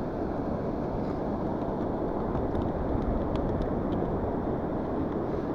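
Steady low rumble of strong wind buffeting the microphone, with a few faint small clicks about three seconds in.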